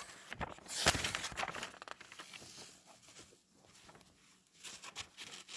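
LEGO plastic pieces clicking and rattling as they are handled and sorted: a dense cluster of clicks about a second in, then a few scattered clicks near the end.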